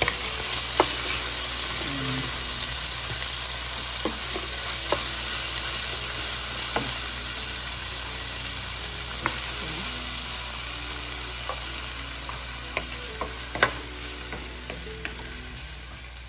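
Food sizzling in hot oil in a pan while being stirred, a steady frying hiss with occasional sharp clinks of the spatula against the pan. The sizzle eases off somewhat near the end.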